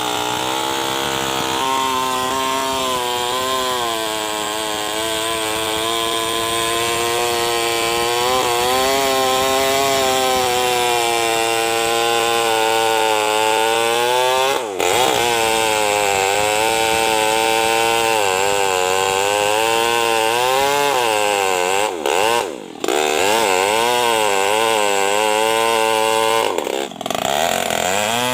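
Tuned-up New West 588 two-stroke chainsaw running at high revs while cutting hard juar wood. Its pitch wavers up and down under load, and it briefly sags and picks back up three times.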